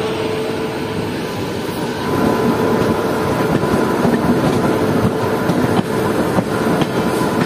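Running noise of a passenger train heard from inside its luggage van as it pulls away from the station: a steady rumble and rattle of the van on the track, with a few faint knocks.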